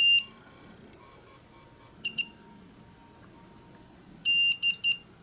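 A KSGER T12 soldering station's built-in buzzer beeps as its rotary encoder knob is turned: a quick double beep about two seconds in, then a longer beep followed by two short ones near the end. The beeps mark the knob's turns, which switch the station into boost mode.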